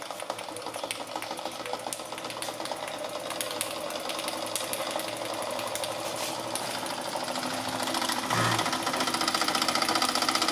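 Märklin 4106 toy live-steam engine running fast in reverse, a rapid, steady mechanical clatter that is noisier in this direction. It gets somewhat louder about eight seconds in.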